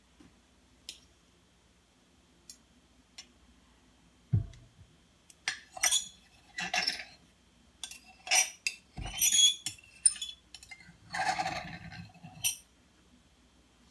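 Kitchen utensils and glassware being handled: a few faint ticks, a dull thump about four seconds in, then a run of sharp clinks and clattering as dishes and utensils knock together.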